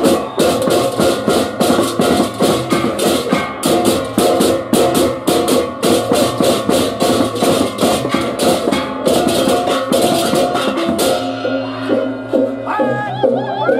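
Balinese baleganjur procession gamelan playing: fast, clashing hand cymbals over gong-chime tones and drums. About eleven seconds in it gives way to a short jingle with gliding tones.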